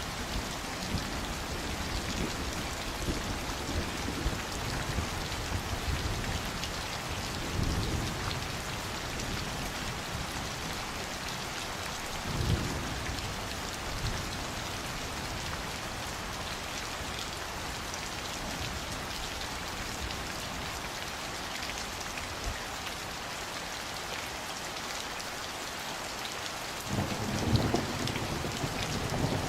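Steady rain falling, an even hiss of drops. Low rumbles of thunder come in briefly about eight seconds in and again around twelve seconds, and a longer, louder rumble starts near the end.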